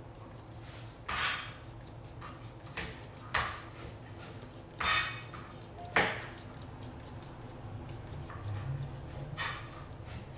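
Small jar of glitter shaken and tapped over a cake in a few short rattling bursts, with one sharp tap about six seconds in.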